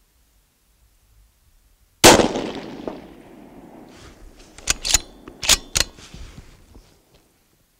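A single rifle shot from a Ruger Precision Rifle in 6.5 Creedmoor about two seconds in, with a long echoing tail. Nearly three seconds later come four sharp metallic clacks as the bolt is worked to chamber the next round.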